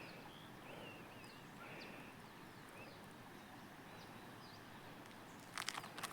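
Faint bird chirps and warbles over quiet rural ambience, with a few sharp clicks near the end.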